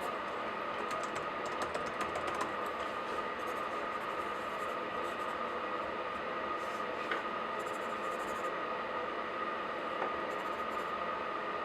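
Laptop keyboard typing in short bursts of quick key taps, a dense run at the start and a few brief flurries later, over a steady background hum.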